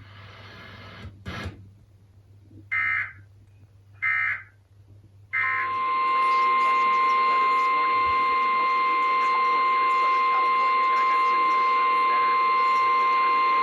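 Emergency Alert System broadcast signalling heard over radio: a click, then three short warbling SAME digital data bursts, followed by a loud steady single-pitch alert tone lasting about nine seconds, the NOAA Weather Radio warning tone that precedes a test message.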